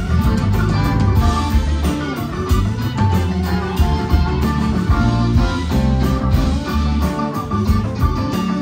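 Live rock band playing, with guitar over bass guitar and a drum kit keeping a steady beat.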